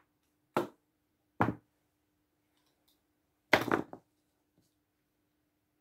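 Short handling knocks on a table: two single knocks in the first second and a half, then a louder cluster of taps and rustle about three and a half seconds in, as a small box is handled and set down. A faint steady hum runs underneath.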